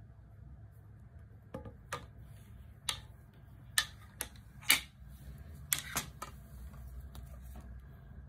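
Golf clubs being handled, their shafts and heads clicking and knocking against each other in about nine irregular sharp clicks through the middle of the stretch, over a faint low room hum.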